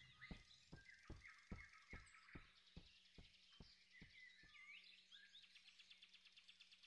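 Very quiet forest ambience: faint bird chirps, with a row of soft, evenly spaced ticks, about two and a half a second, that fade away over the first four seconds or so.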